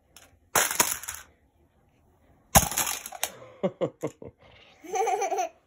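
A tower of Picasso Tiles plastic magnetic building tiles being knocked down, clattering in two crashes: one about half a second in and a louder one about 2.5 seconds in, with a few scattered tile clicks after the second. A child's voice is heard near the end.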